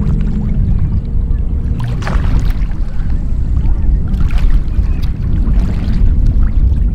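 Steady low rumble of wind on the microphone, with water washing at the rocks of a seashore.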